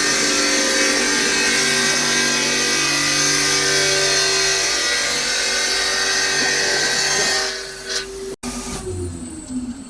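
CNC bridge saw's blade cutting a stone countertop, a loud steady grinding whine with several steady tones. About three-quarters of the way through it falls away and breaks off briefly, and a quieter falling tone follows.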